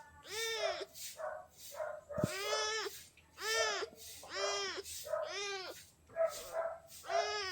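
Kitten meowing repeatedly, about eight short calls, each rising and falling in pitch, a few of them weaker than the rest, calling for attention.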